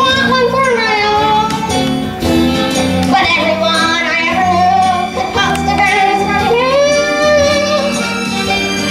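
A child singing a show tune over instrumental accompaniment, with long held notes.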